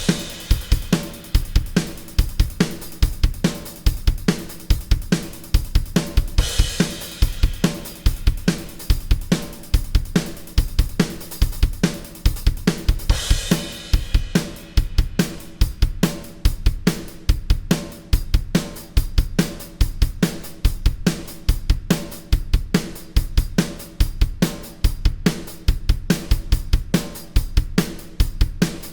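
Drum kit played alone with no other instruments: a driving rock pattern of kick, snare and crashing cymbals, which about halfway through thins to a tighter hi-hat, kick and snare verse groove.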